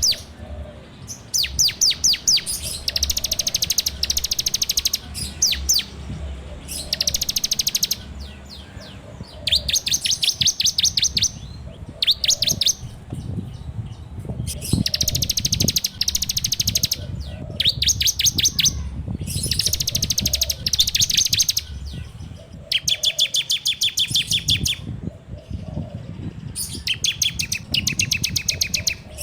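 Bar-winged prinia (ciblek) singing in rapid, high-pitched rattling trills. The trills come in bursts of about one to two seconds, repeated over and over with short pauses, in the fast continuous 'ngebren' style. A low hum runs underneath.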